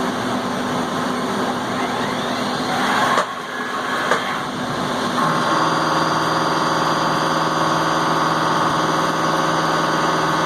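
Haas VF-2 CNC vertical mill running with its spindle in low gear, likely taking a light facing cut with a shell mill. The sound is rough and uneven at first, dips briefly about three seconds in, then settles about five seconds in into a steady hum with a pitched whine.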